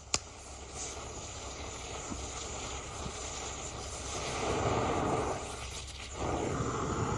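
Propane torch flame blowing against snow: a steady rushing hiss that grows louder about four seconds in and again near the end, with a sharp click just at the start.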